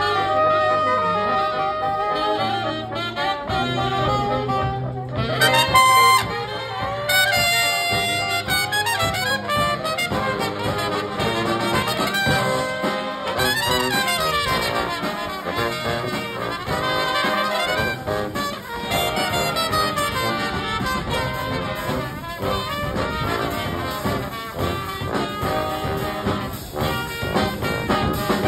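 Live brass band playing together: trumpets, saxophones and trombone over a low bass line, with a steady beat throughout.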